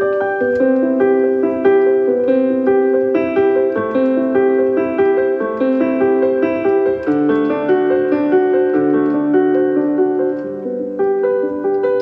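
Background piano music: a steady flow of quick melodic notes, with deeper bass notes coming in about halfway through.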